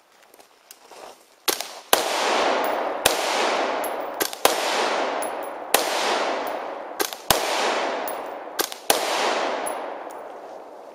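Rifle fired in single shots, about eight in all at irregular intervals of roughly half a second to a second and a half, each shot trailing a long echo.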